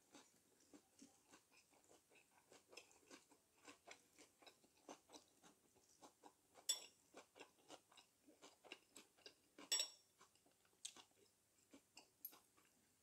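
Close-up chewing and crunching of food in the mouth: a steady run of small wet clicks and crunches, with a couple of louder clicks about seven and ten seconds in.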